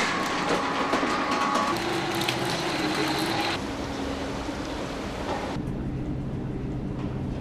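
Shopping-mall machinery: a metal roller shutter rattling at first, then the steady hum of escalators and a glass lift. The sound changes suddenly twice, about three and a half and five and a half seconds in.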